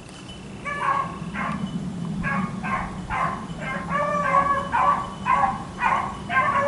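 Beagles baying on the chase: a run of short, repeated barks starting about a second in, about two a second, with the last one drawn out.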